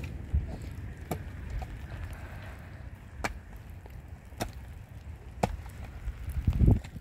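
A series of sharp knocks, roughly one a second with a gap, over a low rumbling background, ending in a loud low thud near the end.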